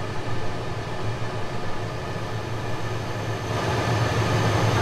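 Steady low hum with rushing air from a large industrial exhaust fan, growing louder and brighter about three and a half seconds in.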